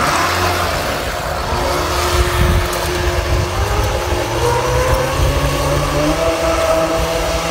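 Small remote-control boat's motor whining steadily as it tows a fishing-net line out across the water, climbing in pitch about five seconds in and then holding, over a low rumble.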